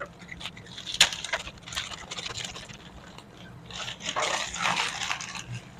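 Thin plastic courier bag rustling and crinkling as a parcel is torn open and an item pulled out, with a sharp click about a second in and the loudest rustling in the second half.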